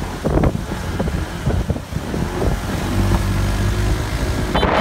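Wind buffeting the microphone in an uneven low rumble, with a car driving slowly past.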